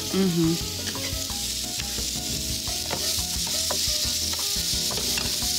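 Onion and mango curry sauce frying in oil in a hot frying pan, sizzling steadily.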